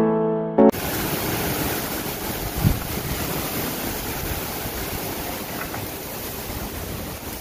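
Strong gusty wind rushing over and buffeting the microphone, with a short low thump about two and a half seconds in. The last notes of an electric piano tune stop in the first second.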